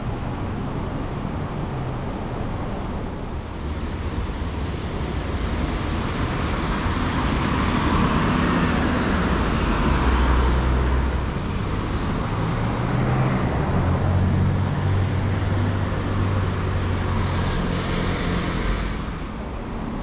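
Street traffic: road noise that swells as motor vehicles pass close, loudest around the middle, with a low engine hum through the second half.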